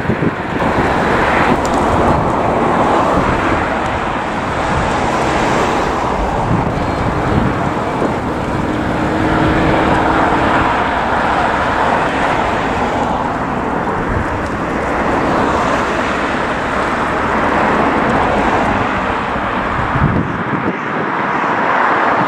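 Class 37 diesel locomotives' English Electric engines running, a steady loud rumble.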